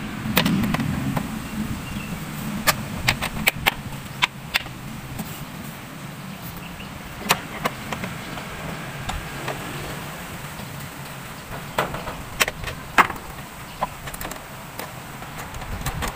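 Scattered sharp clicks and knocks of hands unfastening and handling the plastic air-filter housing on a car engine, irregularly spaced, with a dozen or so of them.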